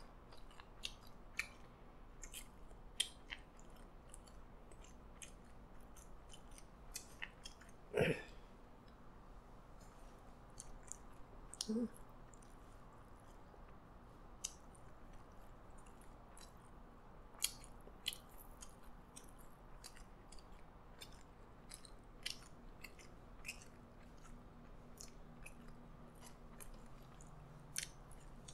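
Faint close-miked chewing and mouth sounds of a man eating McDonald's Twister fries and burger patties, with scattered soft clicks, and one louder short throat sound about eight seconds in.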